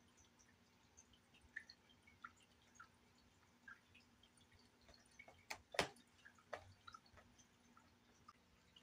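Near silence with scattered faint ticks, and a short cluster of louder knocks about five and a half to six and a half seconds in, from two cats tussling on a carpeted cat tree, their bodies and claws bumping the posts and platforms.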